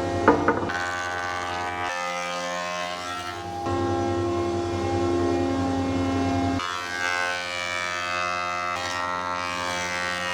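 Background music: sustained, chord-like tones that change to a new chord every two seconds or so.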